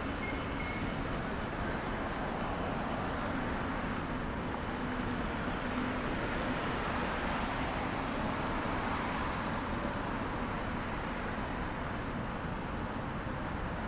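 Road traffic on a wide multi-lane city street: a steady rush of car tyres and engines, swelling louder for a few seconds around the middle as vehicles pass close by.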